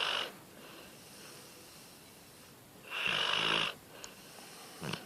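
A sleeping dog snoring: the end of one snore right at the start, then a full snore about three seconds in lasting under a second, with soft breathing between.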